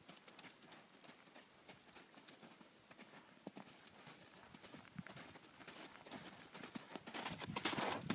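Hoofbeats of a pony cantering loose on a dirt arena. They are faint while she is across the arena and grow loud as she passes close near the end.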